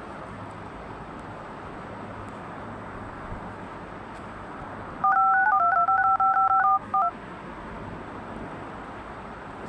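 Telephone keypad tones: a quick string of dialing beeps, each two pitches sounding together, lasting about two seconds from about five seconds in, over a steady low hiss.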